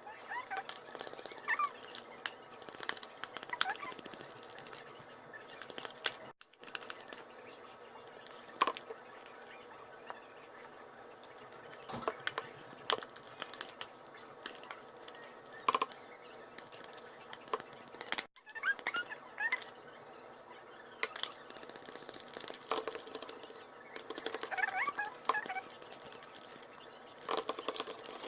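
Glue-and-detergent slime being stirred with a plastic fork and worked in a bowl: irregular small clicks, taps and sticky squelches, with a few short squeaks now and then.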